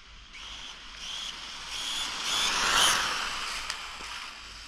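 A Rlaarlo Croboll 1/14-scale RC car making a speed pass: a high motor whine and tyre hiss swell, peak about three seconds in, then fade as it runs away. The owner finds it running slower than it should and suspects the ESC or a sensor.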